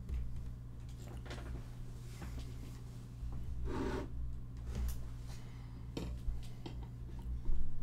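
Hands handling a phone in a plastic keyboard case on a wooden desk: rubbing and sliding with scattered clicks over a steady low hum, a longer rub about halfway through, and a louder knock near the end.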